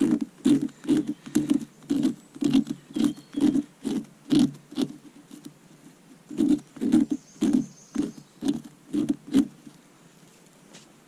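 Folding knife cutting short slits into a sheet of bark on the ground, in quick repeated strokes about two a second. There is a brief pause a little past the middle, then the strokes resume.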